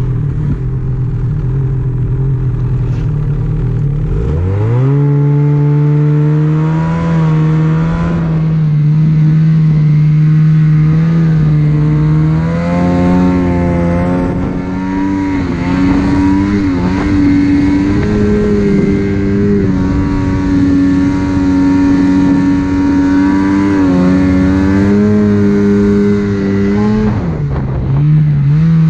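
Ski-Doo snowmobile engine revving up sharply about four seconds in, then running at speed with its pitch rising and falling as the throttle changes. Near the end it drops briefly and picks up again.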